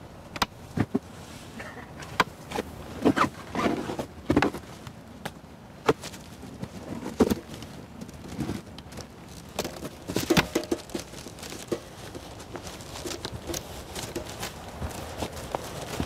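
Irregular crunches and cracks of footsteps and movement on a dry forest floor of leaves and twigs, with louder clusters in the first few seconds and again about ten seconds in.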